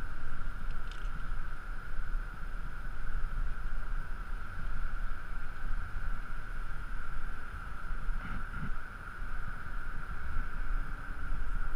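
Wind buffeting a body-worn camera's microphone high on a building face: an uneven low rumble that swells and dips, with a steady thin high hum underneath.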